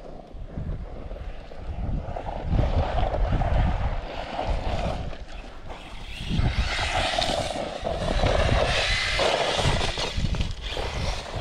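Brushless electric motor of a hobby-grade 4x4 RC car whining as it speeds up and slows across loose volcanic gravel, its tyres churning and spraying the stones. The whine climbs higher from about halfway through.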